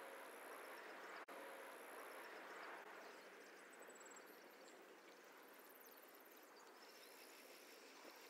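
Near silence: faint outdoor ambience with some faint, high-pitched chirping.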